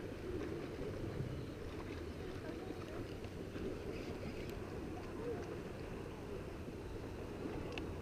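Steady low rumble of wind on the camera microphone mixed with sea water lapping, with a few faint ticks.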